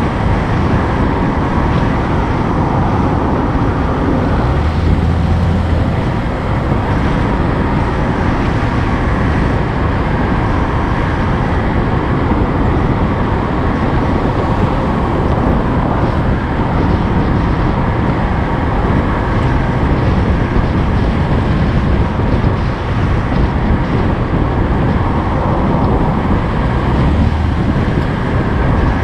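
Steady engine and road noise of a moving vehicle, heard from on board while riding.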